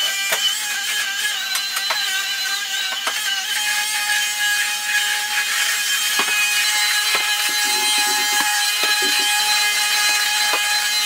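Cordless stick vacuum cleaner running over a tiled floor: a steady motor whine with a hiss of suction and occasional short clicks.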